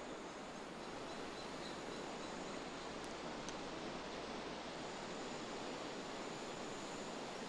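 Steady outdoor ambience: a soft, even hiss of wind and rustle, with no distinct events.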